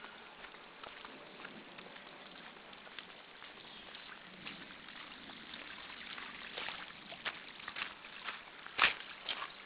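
Footsteps crunching on wet gravel and silt, sparse at first and coming more often in the second half, with one louder knock near the end, over a faint steady water-like hiss.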